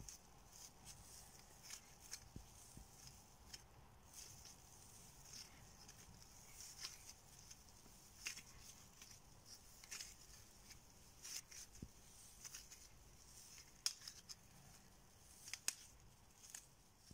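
Faint, irregular soft clicks and crackles of a maida, ghee and curd dough being pressed and kneaded by hand in a stainless steel bowl.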